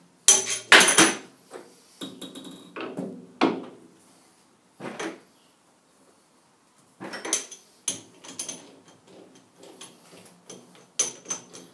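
Metal clacks and clinks of a chuck key being worked in a lathe's three-jaw chuck, tightening the jaws, in irregular bursts with short ringing. The loudest knocks come about a second in.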